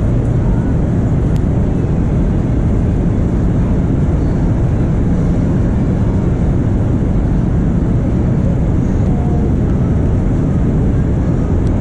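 Wind buffeting the microphone: a loud, steady low rushing noise that doesn't let up.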